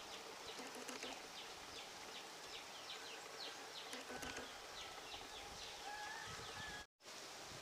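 Faint outdoor ambience of small birds chirping: many short falling chirps, two or three a second, over a faint steady low hum. The sound cuts out completely for a moment near the end.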